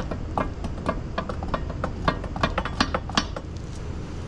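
A run of light, irregular clicks and taps, about three a second, over a steady low rumble.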